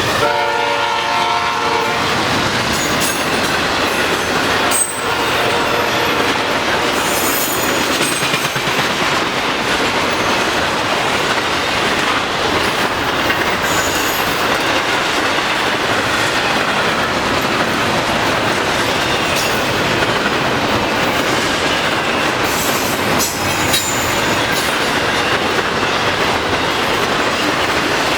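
The air horn of Norfolk Southern GE ES44DC #7680 ends a blast about two seconds in. Then the long intermodal freight train rolls steadily past with the clatter of wheels over rail joints and occasional high wheel squeals.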